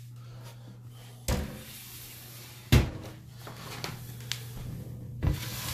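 Knocks and clunks of a snake enclosure's door being handled: three sharp knocks, the loudest midway, with a faint click between, over a steady low hum.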